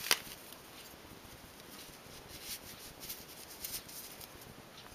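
Soft rustling and light taps of hands handling a knitted acrylic toy cat, turning it right side out and straightening its legs, with one sharp click just after the start.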